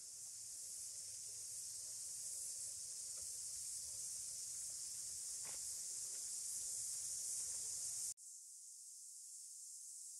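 A steady high-pitched hiss, with a faint low rumble under it until a sudden cut a little past eight seconds, after which only the hiss goes on.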